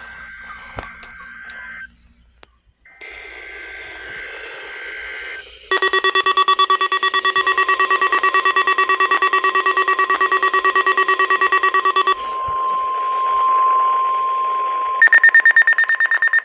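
NOAA Weather Radio weekly test coming through a weather radio receiver: warbling digital data tones over static, then about six seconds of a pulsing electronic alarm. A steady single tone around 1 kHz follows over static, and a rapid pulsed beeping starts near the end.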